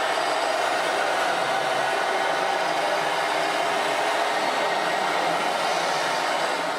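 Steady whirring of a radio-controlled model vehicle's electric drive, running at an even pitch and level.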